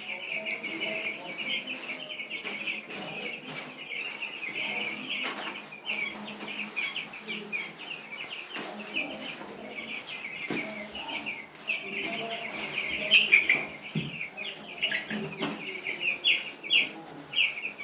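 A brood of week-old broiler chicks peeping continuously, many short high peeps overlapping, with a few faint knocks.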